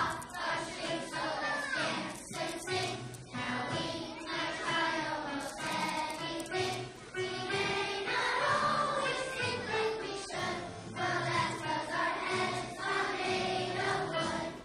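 Children's choir singing a song with musical accompaniment.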